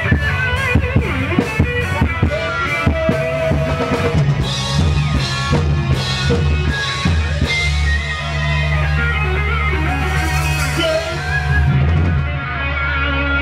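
Live band playing an instrumental passage with no singing: drum kit keeping a regular beat with cymbals, electric guitar lines over steady bass notes. The cymbals drop out near the end.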